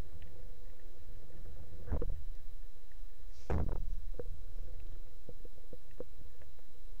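Underwater sound picked up by a camera on a speargun during a freedive: a steady low rumble of water against the housing, two louder whooshes about two and three and a half seconds in, and scattered faint clicks in the second half.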